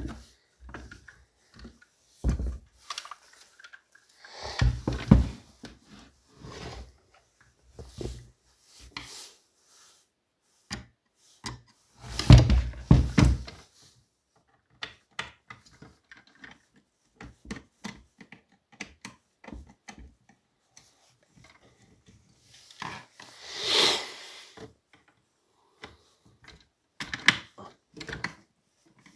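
Clicks, knocks and rubbing as plastic housing parts of a Partner 410 chainsaw are handled and worked with a screwdriver. A louder cluster of knocks comes about twelve seconds in, and a short scraping rush around twenty-four seconds.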